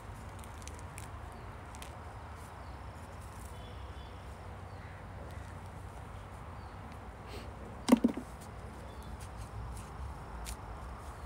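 A steady low hum with scattered faint clicks, and one sharp double knock with a short ring about eight seconds in.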